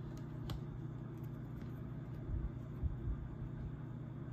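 Steady low hum of room noise, with a faint click about half a second in and a few soft low bumps near the middle as a trading card is handled.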